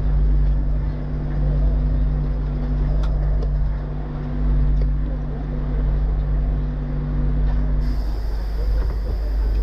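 Heritage W class tram standing still: a steady low hum from its onboard equipment that cuts off abruptly about eight seconds in, over a low rumble of street traffic and murmuring passengers.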